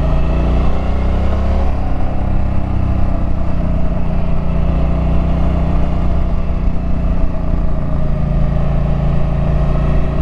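Suzuki Boulevard M50's 805 cc V-twin engine running steadily while riding, with a steady engine note.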